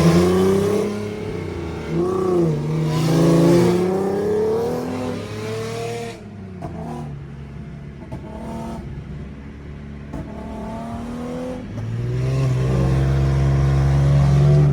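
Car engine revving and accelerating, its pitch climbing and dropping several times as it pulls through the gears. It eases off in the middle, then holds a loud steady drone near the end.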